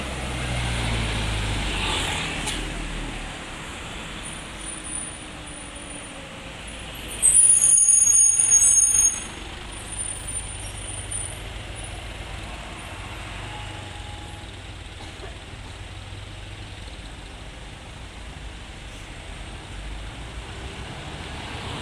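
Road traffic passing: a heavy vehicle's engine rumble in the first few seconds, then about seven seconds in a loud, high-pitched tone lasting about two seconds that cuts off sharply, followed by a steady low engine hum.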